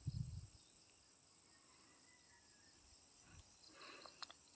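Faint, steady high-pitched chirring of crickets or similar insects. A brief low thump at the very start is the loudest sound, and a few faint clicks come near the end.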